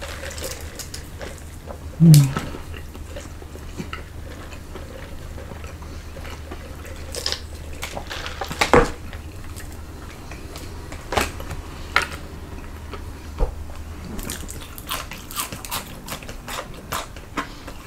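Close-up eating sounds: chewing on fried chicken and sips through a drinking straw, with scattered sharp clicks of plastic forks against plastic food trays. A brief low hum-like sound, like a mouth-closed 'mm', stands out about two seconds in.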